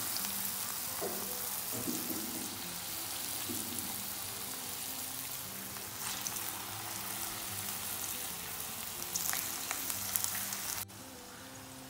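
Green gram cutlets deep-frying in hot oil on a low flame: a steady sizzle, with a few light clicks near the end. The sizzle turns abruptly quieter about eleven seconds in.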